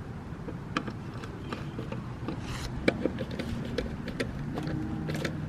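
Scattered light clicks and taps of a hand screwdriver driving the side-mirror mounting screws into the door, over a steady low background rumble.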